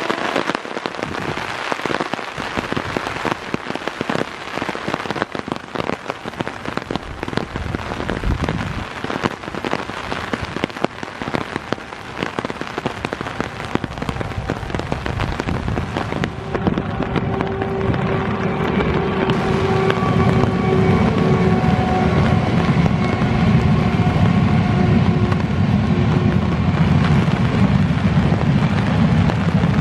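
Heavy rain falling with a dense, steady patter. From about halfway through, a train led by a WAP-7 electric locomotive comes past, adding a rising low rumble of wheels on track and several steady tones over the rain.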